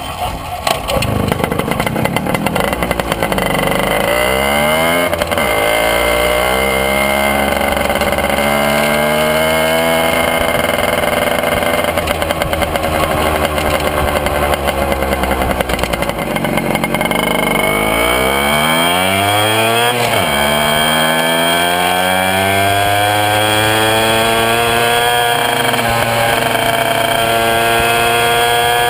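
Puch Maxi moped's single-cylinder two-stroke engine running under way through a 25-euro chrome cigar exhaust, very loud. The engine speed climbs, falls back and then climbs again. The exhaust leaks all round the joint between the header pipe and the silencer.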